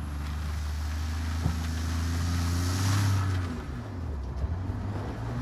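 Ford F-150 pickup engine revving hard while its tyres spin and slide through snow. The revs climb to a peak about three seconds in, with a hiss of spinning tyres throwing snow, then drop away and build again near the end.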